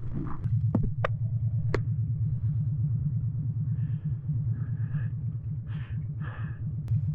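Harley-Davidson motorcycle engine running at steady low revs, with a few sharp clicks in the first two seconds.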